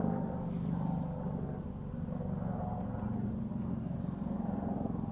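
Helicopter flying overhead, its engine and rotor making a steady low drone with a fast pulsing beat.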